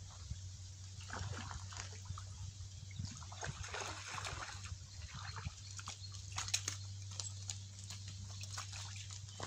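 Water splashing and sloshing close by in two spells, about a second in and again around the middle, with scattered sharp clicks later, over a steady low hum.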